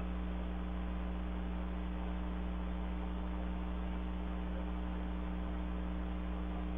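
Steady electrical mains hum with an even hiss underneath, picked up by a home security camera's microphone; nothing else stands out.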